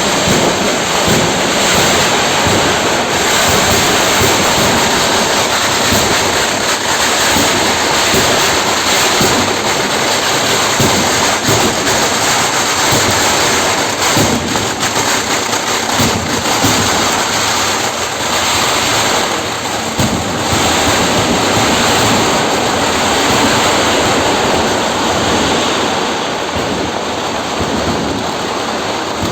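Fireworks display going off in a dense barrage: many bangs and crackles running together into a loud, continuous rush of noise.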